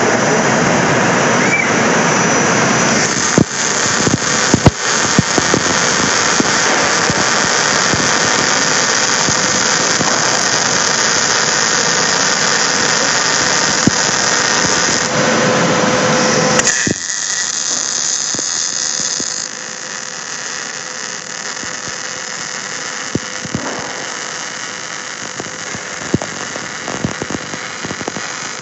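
Robotic welding equipment running: a loud, steady arc hiss with scattered sharp crackling pops. About 17 seconds in it drops to a much quieter hiss.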